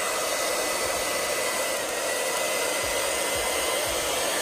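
Handheld electric hair dryer running steadily, a constant blowing whir with a faint high whine, used as a heat source to soften a warped plastic bumper trim piece.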